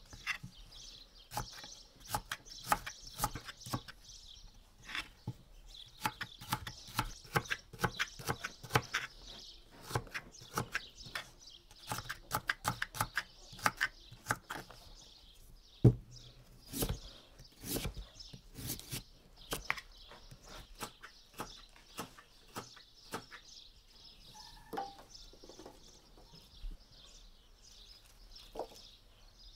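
Hands-on food preparation: an irregular run of sharp knocks and clicks, coming quickest in the middle, over a steady high chirping in the background.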